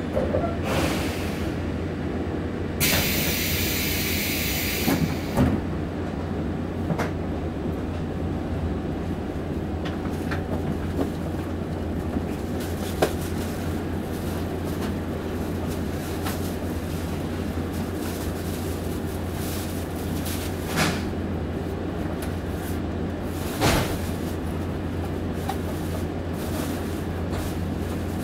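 Inside the passenger cabin of a 189 series electric train: a steady low hum, with a loud hiss about three seconds in that lasts some two seconds, and a few scattered knocks and clunks.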